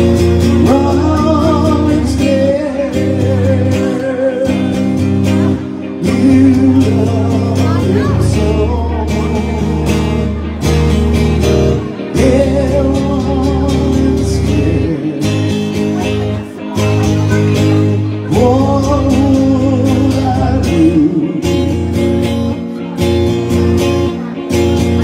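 Live rock-and-roll ballad: a man sings long held phrases with vibrato over a strummed electric guitar.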